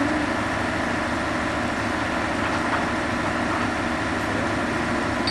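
An engine idling, a steady, unchanging drone.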